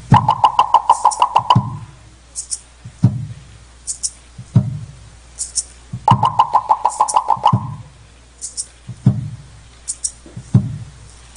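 Percussion music with no melody. Two runs of rapid, pitched wooden knocking, at the start and again about six seconds in, are set over deep drum beats about every second and a half, with light high clicks between them.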